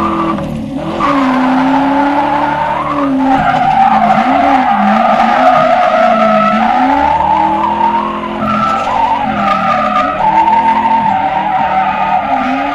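Ford Mustang GT's V8 engine revving up and down over and over while the rear tyres squeal without letup as the car slides in a drift, heard from inside the cabin.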